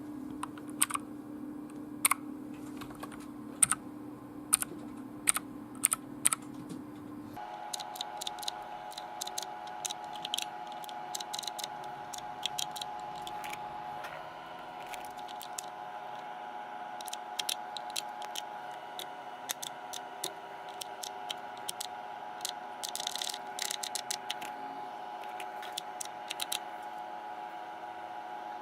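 Keys of a Motospeed CK888 mechanical keyboard clicking as they are pressed. At first they come as separate keystrokes, then as denser typing with a quick burst near the end. A steady low hum runs underneath and changes its tone about seven seconds in.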